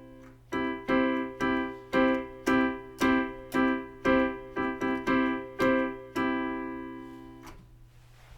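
Piano playing a C major chord, struck about a dozen times in a steady rhythm of roughly two a second, the last one left to ring and fade out.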